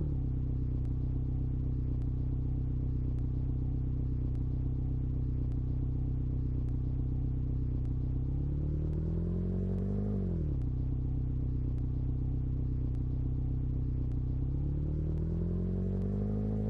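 Digitally edited stomach-growl sound effect: a low, steady, engine-like drone that slowly rises in pitch, drops sharply about ten seconds in, rises again, then cuts off abruptly at the end.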